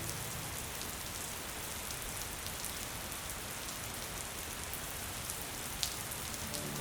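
Steady rainfall, an even hiss with scattered single drops ticking and one sharper drop near the end.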